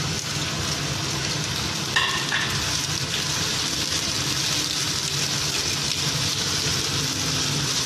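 Chopped onions sizzling in hot ghee in a karahi, stirred with a silicone spatula. A short ringing clink about two seconds in.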